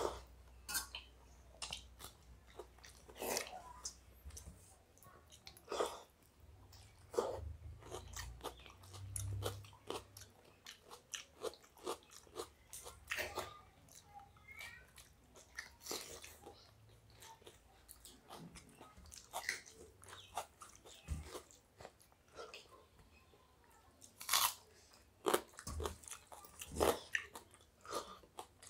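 Close-up eating sounds of two people eating by hand: chewing and biting into fried stuffed bitter gourd (karela) and watery rice, with crunchy bites among wet mouth clicks at an irregular pace.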